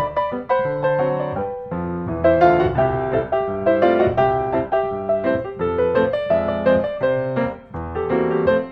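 Background piano music: a continuous run of notes in a flowing melody.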